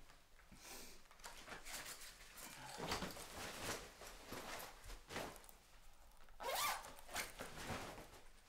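Zips being undone and fabric rustling as a uniform vest and jacket are taken off. The loudest sound is one long rising zip pull about two-thirds of the way through.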